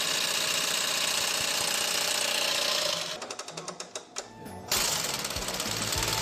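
Sewing machine running fast with a dense mechanical clatter. About three seconds in it slows so the separate stitch strokes can be heard, then it speeds up again.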